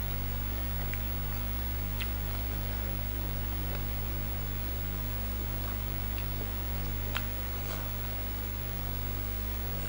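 Steady low electrical hum with a hiss, and a few faint clicks of eating, the clearest about seven seconds in.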